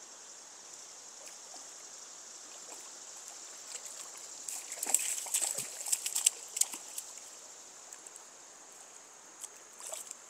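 Steady rush of a flowing river, with a burst of splashing about halfway through as a hooked rainbow trout thrashes at the surface while being landed, and a few more small splashes near the end.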